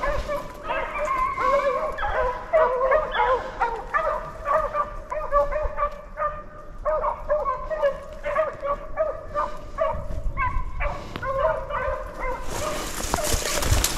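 A pack of beagles baying on a rabbit's trail: several dogs' voices overlap in short, repeated cries. A brief rush of noise comes in near the end.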